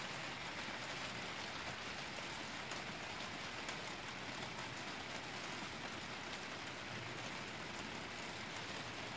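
Steady rain shower falling: an even hiss with a fine patter of drops.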